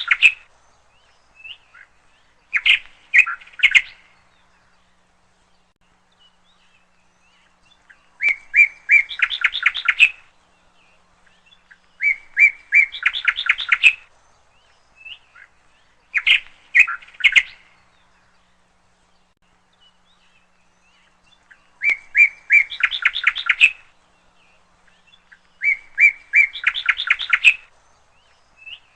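A bird singing: a phrase of quick chirps about two seconds long, repeated every few seconds, about six times.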